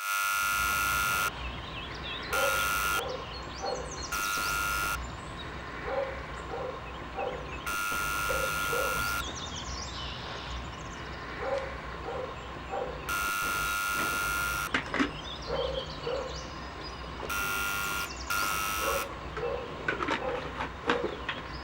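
An electronic buzzer sounding in about seven pressed bursts of uneven length and spacing, a steady high tone with overtones, with faint short sounds in the gaps.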